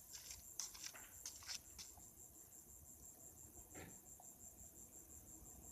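Crickets chirping in a fast, even high-pitched pulse. A few sharp clicks or knocks fall in the first two seconds, and another comes near four seconds.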